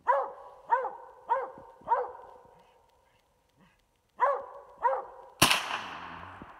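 Coonhound barking up at a treed raccoon, four barks then two more after a pause. Then a single loud gunshot, fired at the raccoon in the tree, cracks out about five seconds in and echoes away.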